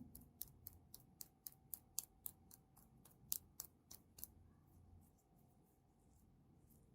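Slime being pressed and worked by hand, giving a steady run of sharp little clicks and pops from trapped air, about four a second, that thins out to a few faint ones after about four seconds.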